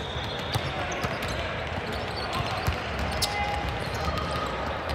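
Balls bouncing and striking a hard court floor in scattered, irregular knocks, over a background murmur of voices.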